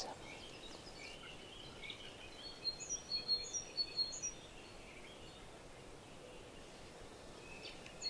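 Faint small songbirds calling: a run of short, thin, high chirps, some falling in pitch, about two and a half to four and a half seconds in, over a steady low hiss of outdoor background noise.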